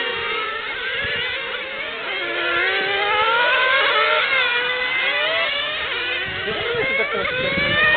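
Several radio-controlled model racing cars' small engines whining around the track, their high pitches overlapping and rising and falling as they speed up and slow down through the corners.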